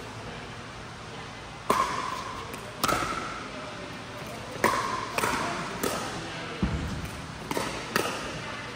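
Pickleball paddles hitting a plastic ball in a rally: about seven sharp, ringing pops from about two seconds in, spaced roughly half a second to a second apart, echoing in a large indoor hall, with one dull thump midway.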